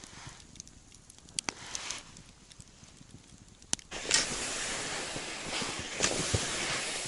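Faint, sparse crackles and pops from a campfire burning down to embers. Just before four seconds in, a steady, much louder rushing noise starts abruptly, with a few sharp knocks.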